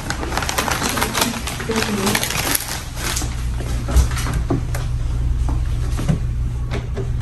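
Soft handling clicks and rustle over a steady low hum, with a single dull thump about four seconds in as a baby doll is laid onto a plastic baby scale.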